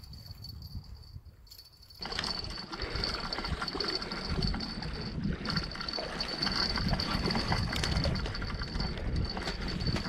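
Spinning reel being cranked steadily under load as a hooked eel is reeled in, with a whirring, rattling gear noise and rough handling rumble that start abruptly about two seconds in.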